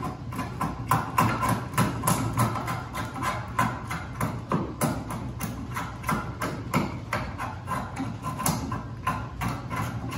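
Draw knife shaving wood from a workpiece clamped in a vise, pulled in quick short strokes about three or four a second, each stroke a sharp scraping cut, over a steady low hum.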